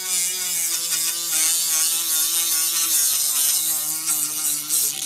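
Handheld rotary grinder spinning an abrasive disc against a rusty brake rotor, scrubbing off surface rust: a steady motor whine that wavers a little in pitch as the disc bites, over a high scouring hiss.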